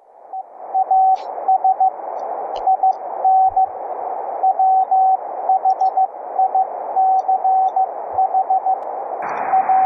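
Morse code (CW) signal on the 40-metre amateur band, heard through an HF receiver's audio output: a single steady-pitched beep keyed on and off in dots and dashes over constant band hiss. It is heard unfiltered, without the audio bandpass filter. Near the end the hiss gets noticeably louder.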